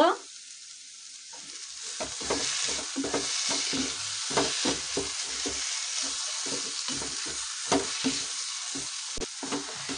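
Wooden spatula stirring and scraping grated-carrot halwa in a nonstick pan as it roasts in ghee, with a steady sizzle underneath. The scraping strokes start about two seconds in and come about three times a second.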